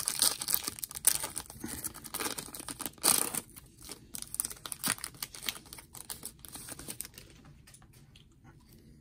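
Foil wrapper of a trading-card pack crinkling and tearing as it is ripped open by hand, with the cards rustling as they are slid out. The crackling thins out near the end.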